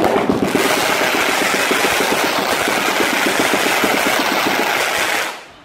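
A beehive rocket rack firing: a mass of bottle rockets launching together in a loud, dense crackling rush that starts at once and cuts off about five seconds in.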